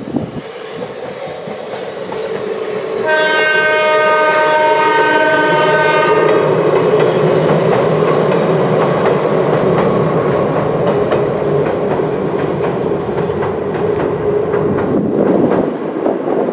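Ex-Keihan 3000 series electric multiple unit sounding one long horn blast about three seconds in, lasting about three and a half seconds, as it approaches. Its wheels then rumble and clatter steadily as it crosses a steel girder bridge.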